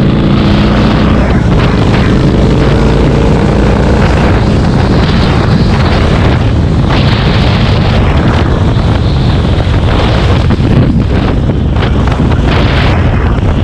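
Motorcycle riding at highway speed, its engine running steadily under loud wind buffeting on the microphone.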